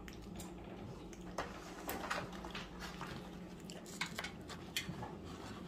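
Faint, scattered clicks and crackles of nachos being eaten by hand: crisp tortilla chips chewed and picked out of a foam takeout box. A low steady hum sits underneath.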